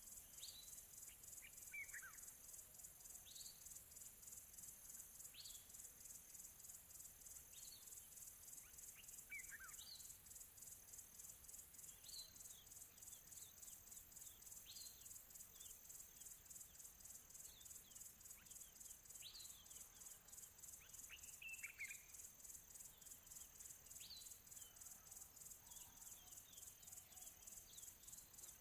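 Faint nature ambience: a steady, evenly pulsing high insect trill, with short falling bird chirps every second or two.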